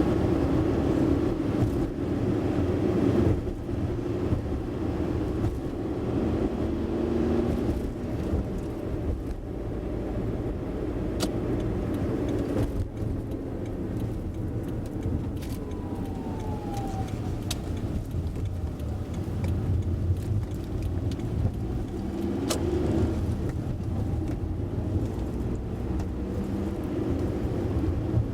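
Steady low rumble of a car's engine and tyres on the road, heard from inside the moving car, with a few sharp clicks.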